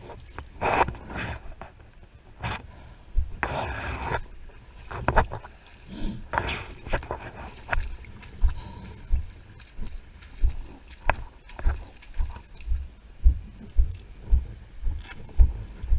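Wellington boots splashing through shallow floodwater with each step. In the second half they give way to footsteps on a wet lane, regular low thumps about two a second.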